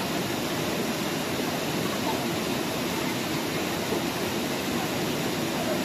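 Small cascades of river water rushing steadily into a pool, a constant even roar of white water, with faint voices of bathers.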